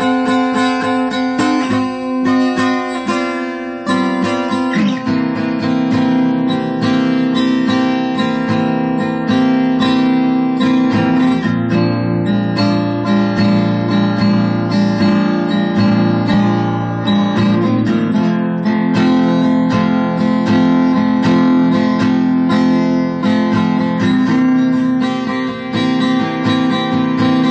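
Guitar playing a blues tune, mostly strummed chords that change every few seconds, with no singing.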